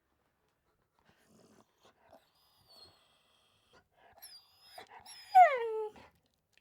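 A dog whimpering: faint high whines about four seconds in, then a louder whine near the end that falls in pitch over about half a second.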